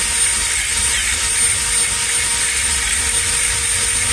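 Cordless drill running at speed with a drill bit reaming out a screw hole in a tyre's tread, cleaning and opening the hole for a plug. A steady high whine that holds level throughout.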